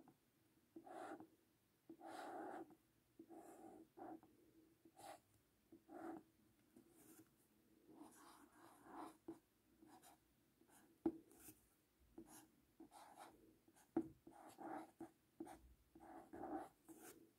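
Felt-tip marker writing on a paper card: a run of faint, short strokes, one after another, with two sharper taps of the pen tip in the second half.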